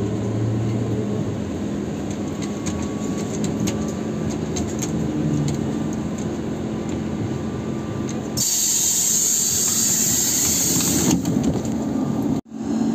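Steady hum and rumble inside a ZiU-682 trolleybus, then about eight seconds in a loud hiss of compressed air for about three seconds as its pneumatic doors open. Near the end the sound cuts out for a moment.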